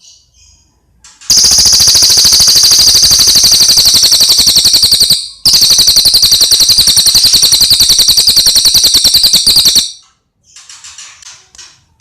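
Cililin bird singing: two long, very loud rapid trills of about four seconds each, separated by a brief break, then a softer chattering phrase near the end.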